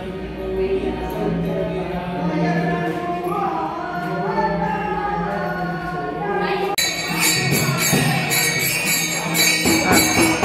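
Devotional music with melodic singing, then from about seven seconds in a bhajan-kirtan group: voices singing over the bright rapid jingle of small hand cymbals.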